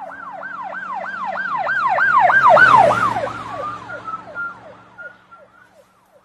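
Emergency vehicle siren passing, a falling whoop repeating about three times a second that grows louder to a peak about two and a half seconds in and then fades away, with a rush of vehicle noise at its loudest.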